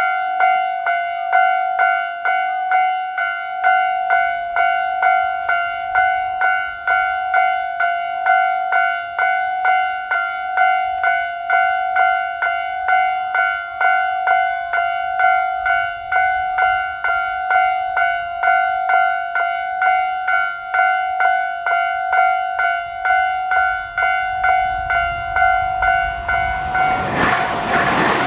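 Japanese railway level-crossing alarm ringing its steady, evenly repeated ding at a fixed pitch. Near the end the noise of an approaching train swells in under it.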